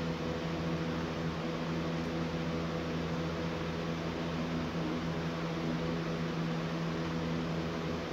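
Steady machine hum with a few fixed low tones under an even hiss, unchanging throughout, like a fan or motor running in the room.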